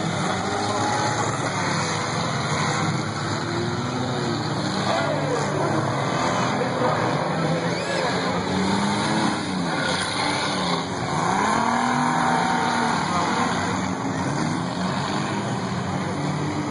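Figure-8 race cars' engines revving as several cars race past, their pitch rising and falling as they go by, over a steady din.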